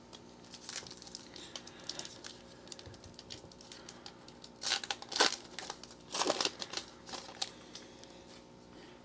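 Foil wrapper of a trading-card hobby pack crinkling as it is handled and torn open. It crackles irregularly throughout, with two loudest spells of tearing around the middle, then goes quieter as the cards come out.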